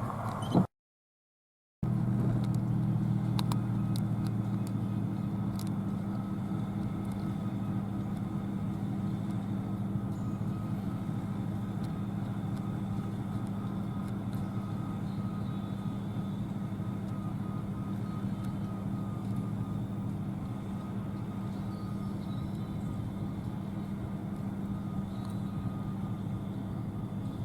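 Combine harvester running steadily in the field, a low, even engine drone that does not rise or fall. The sound cuts out completely for about a second near the start.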